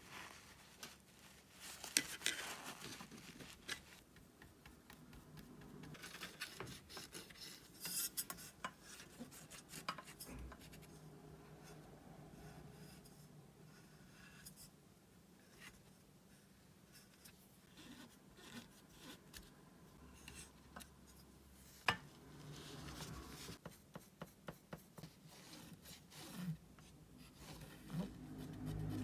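Quiet close-up handling sounds of cleaning a vintage Reeves tin watercolour box: tissue and cotton swab rubbing over the paint pans, with scattered light clicks and taps on the metal tin, two of them sharper about 2 and 22 seconds in.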